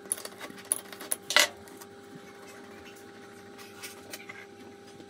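Metal clinks and taps of tools and parts being handled on a small metal lathe, in a quick run with the loudest about a second and a half in, then a few faint ones near the end, over a steady hum.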